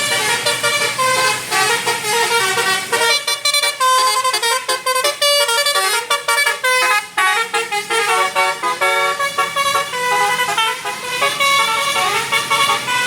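Tour bus 'telolet basuri' musical horn playing a melody of stepping horn notes. The notes come quicker and shorter for a few seconds in the middle.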